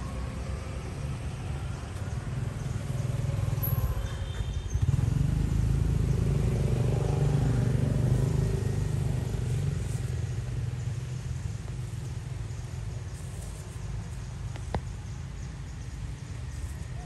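Low engine rumble of a passing motor vehicle, swelling from about three seconds in, loudest over the next few seconds, then fading. A single sharp click comes near the end.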